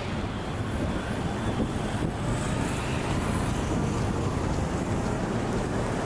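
Steady city street traffic noise: a continuous wash of passing cars and other road vehicles.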